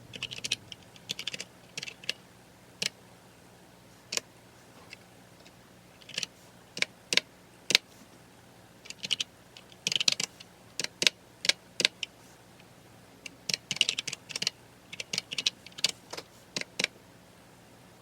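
Typing on a computer keyboard: keystrokes coming in short irregular runs with pauses between them.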